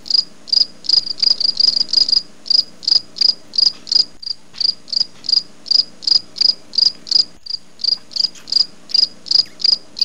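Cricket chirping steadily in short, high, evenly spaced chirps, about three a second.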